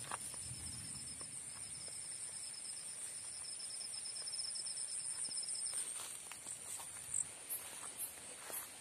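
Night insect chorus: a steady high-pitched trill, with a second, pulsing trill that stops about six seconds in. Footsteps and rustling through wet grass and undergrowth come and go.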